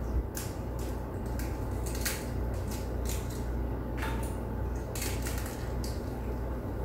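Eggs being cracked and separated by hand: light, sparse clicks and taps of eggshell, about one a second, over a steady low hum.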